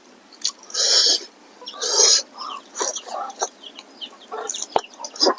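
Close-up eating sounds: two loud slurping sucks about a second apart, then wet lip-smacking and chewing of smoked pork with rice and curry.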